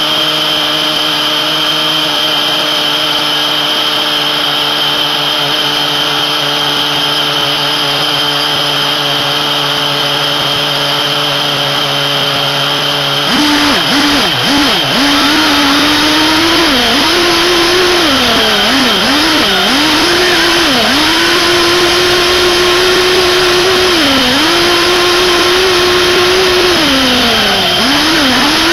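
SH PT21-P3 nitro glow engine (3.5 cc) in a 1/8-scale RC buggy, heard up close from a camera on the car. It idles steadily at first, then about halfway through the car drives off. From there the engine speed dips and rises again and again with the throttle.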